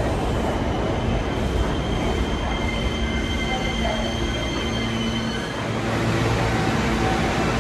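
Subway train rumbling along the rails with its wheels squealing in high steady tones; the squeal fades out a little past halfway, leaving the low rumble and hum of the train.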